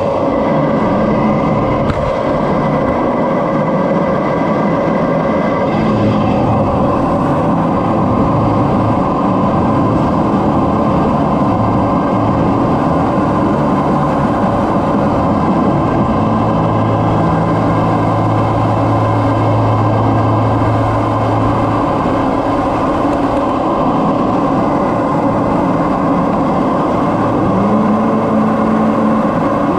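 Steady jet engine and airflow noise heard inside the cockpit of a CT-114 Tutor jet trainer in cruise, from its single turbojet and the air rushing over the canopy. A low hum comes up for a few seconds midway and again near the end.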